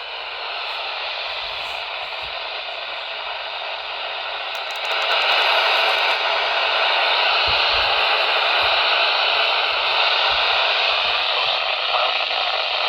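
Radio static: a steady hiss from a radio receiver with no station audio coming through. It gets noticeably louder about five seconds in.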